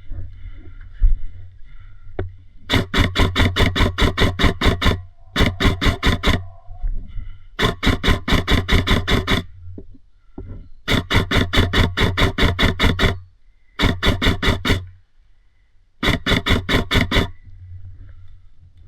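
Airsoft gun firing on full auto in six bursts of rapid, evenly spaced shots, the longest lasting about two and a half seconds.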